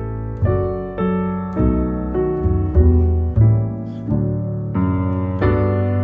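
Background piano music, with notes and chords changing every half-second to a second.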